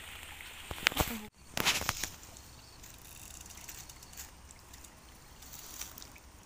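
A few sharp knocks and clatters about a second in, then faint dripping and sloshing water as a bamboo-pole lift net is raised out of a shallow ditch.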